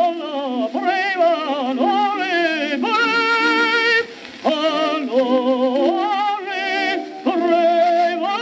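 1908 acoustic gramophone recording of a tenor singing with orchestra: held notes with wide vibrato, several of them slid up into, with a short break about four seconds in. The sound is thin and without bass, as on an early acoustic disc.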